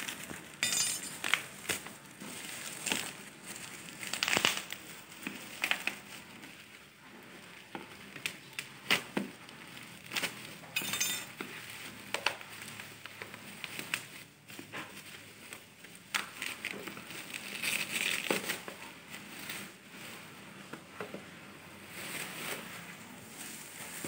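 Plastic parcel wrapping being cut with a knife and pulled apart by hand: irregular crinkling and crackling of a plastic bag and bubble wrap, with sharp clicks as the cardboard boxes inside are handled.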